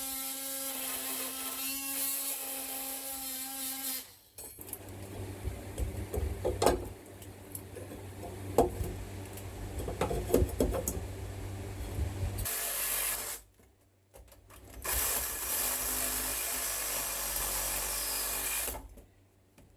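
Power saw with a nail-cutting blade cutting through old nails that hold wooden blocking between ceiling joists: a steady whine at first, then scraping and cutting with sharp knocks, a short stop, and another steady run near the end.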